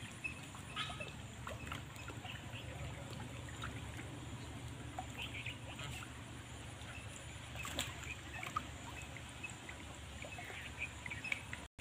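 Shallow lake water trickling and lapping at the shore, with scattered short bird chirps over it. A single sharp click comes about eight seconds in.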